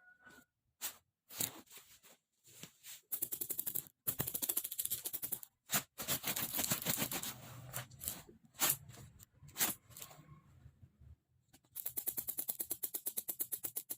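Bursts of rapid clicking and scratching, at times about ten clicks a second, with single sharp clicks in between and a longer scratchy stretch in the middle.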